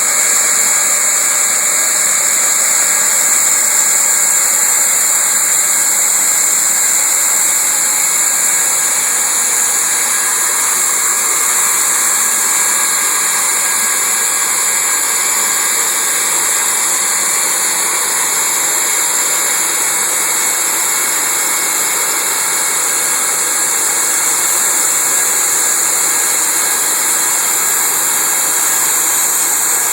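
Manual hot-air vinyl welding gun fitted with a speed tip, blowing steadily as it welds a vinyl rod into a floor seam: a loud, steady rush of air with a high whine.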